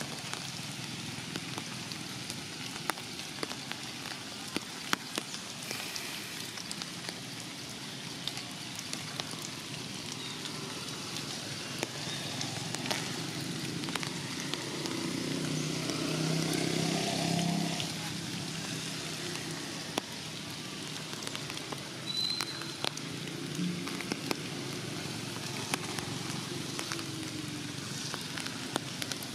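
Rain falling through forest leaves: an irregular patter of drops over a steady hiss. A low drone swells and fades in the middle.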